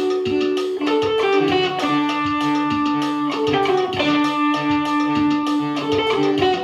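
An electric guitar through a small combo amp and an electronic keyboard playing music together: held notes over a repeating low line.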